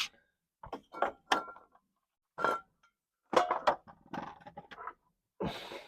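Irregular clinks and knocks of metal and plastic as a hand oil pump and its pipe are handled and fitted into a differential filler hole, with a short rustling hiss near the end.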